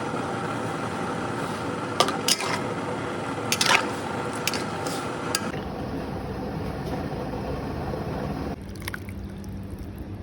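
Liquid sloshing in a cooking pot of tom yum broth, with a few sharp clinks of a utensil against the pot about two and four seconds in.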